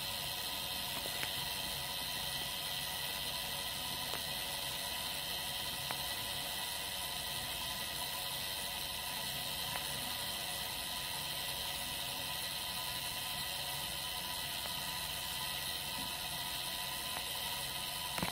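Anniversary clock's gear train running free with its escapement removed, the hands spinning fast: a steady whir and hiss with a few faint clicks.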